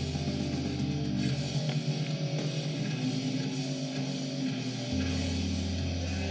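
Background music with guitar; a deep bass note drops out for a few seconds in the middle, then comes back in.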